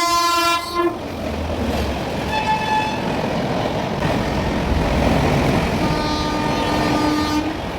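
Train horn sounding three times over the steady rumble of a train running through at speed: a blast at the start, a brief higher-pitched one about two and a half seconds in, and a longer blast from about six seconds to seven and a half.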